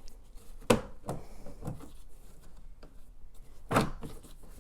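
A hard plastic cover being worked loose by hand: two sharp knocks, the louder one just under a second in and another near the end, with small clicks and rubbing between.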